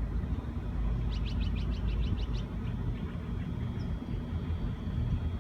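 Low, steady rumble of a freight train hauled by three C class diesel locomotives. About a second in, a bird gives a quick run of about eight high chirps lasting about a second and a half.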